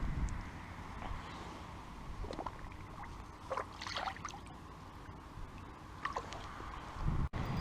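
Light water splashing and dripping with short scattered ticks over a low rumble, broken off abruptly near the end.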